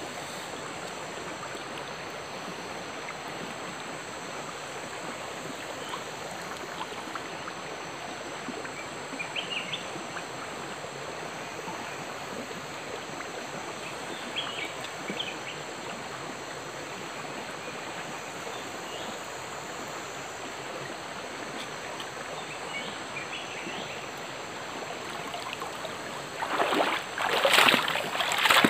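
Steady rushing of a small forest stream, with a few faint short high sounds over it. Near the end come several loud splashes of water.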